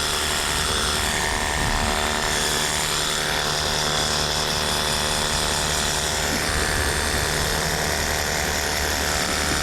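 Pressure washer running steadily, its motor and pump holding one even drone under the hiss of the spray.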